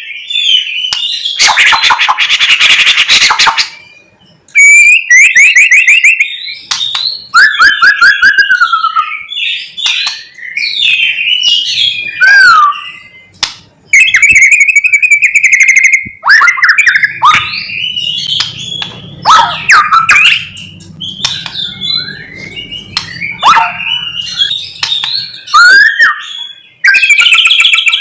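White-rumped shama (murai batu) singing loudly and without pause: a varied song of clear whistles, fast trills, sweeping glides and harsh scratchy notes, full of phrases mimicked from other birds.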